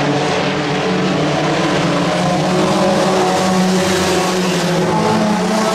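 A field of IMCA Sport Compact race cars, four-cylinder compacts, running at racing speed around a dirt oval. Several engines are heard at once as a steady, overlapping drone that rises and falls slightly as the cars circle.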